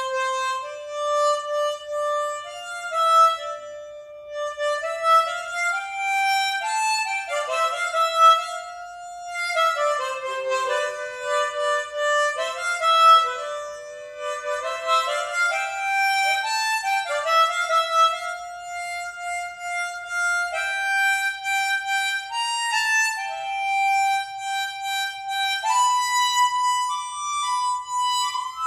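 Solo harmonica playing a slow melody one note at a time, the notes held and stepping up and down.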